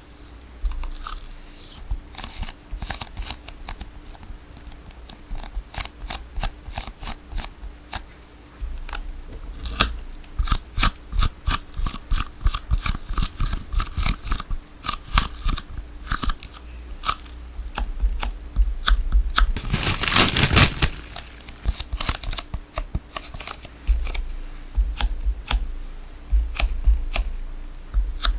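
A tape ball being cut into: many sharp, irregular snips and crackles of sticky tape, with one longer tearing sound about twenty seconds in.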